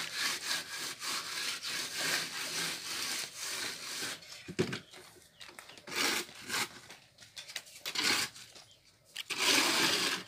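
Rasping scrapes of a plastering trowel working wet cement render onto a concrete-block wall: quick strokes for the first few seconds, then a few separate, longer strokes.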